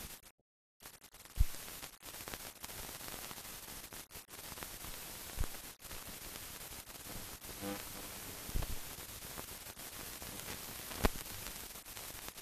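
Steady hiss with a few sharp clicks and pops, the surface noise of an old film soundtrack carrying no other sound.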